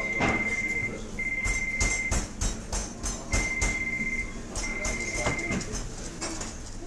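Restaurant ambience: dishes and cutlery clinking and knocking in quick, irregular clatters under a low murmur of the room. A steady high electronic beep sounds four times, each about a second long.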